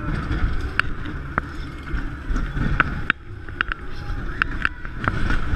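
Fairground roller coaster car running along its steel track, with a steady rolling rumble and a scatter of sharp clicks and knocks from the car and wheels. Wind is buffeting the rider-worn action camera microphone.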